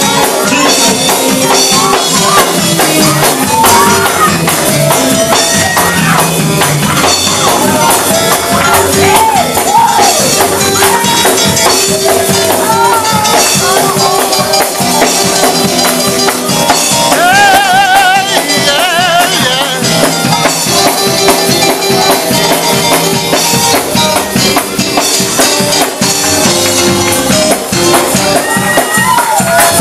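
Live gospel praise-break music: a fast, driving beat of drums and tambourine under sustained held chords, with voices singing and shouting over it.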